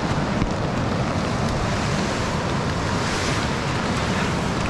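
Whitewater rapids of the Youghiogheny River rushing, a steady wash of water noise.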